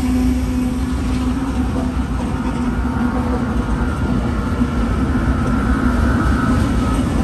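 Consist of Canadian Pacific and CSX diesel-electric freight locomotives passing close by, engines running with a loud, steady low hum over the rolling train.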